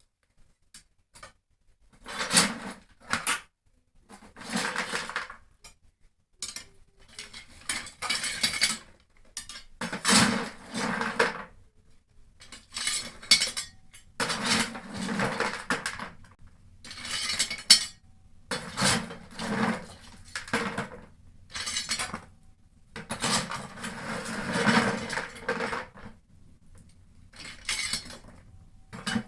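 Lumps of coal being scooped out with a metal shovel and tipped into the firebox of a brick pechka stove, clattering and scraping in about a dozen separate goes with short pauses between.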